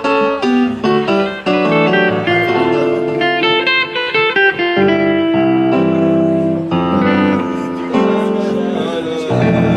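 Live electric guitar and Yamaha stage keyboard playing together through amplifiers, with quick runs of notes in the first half giving way to longer held notes and chords.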